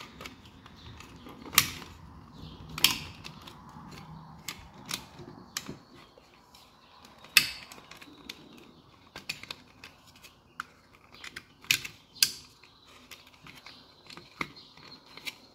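Handling of a Minn Kota Endura trolling motor's hard plastic control head while its wires are pulled through: irregular sharp clicks and knocks of plastic over a faint rustle of wire.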